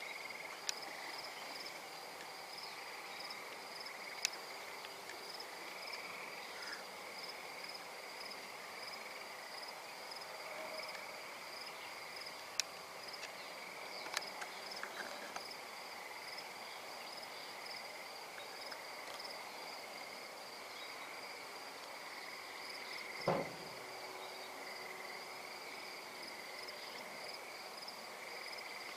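Night chorus of crickets: a steady, high, slightly pulsing trill at two pitches. It is broken by a few faint sharp clicks and, about three-quarters of the way through, one louder short knock.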